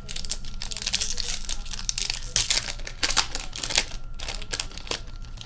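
Foil wrapper of a hockey card pack being torn open and handled, making a run of quick crackles and rustles.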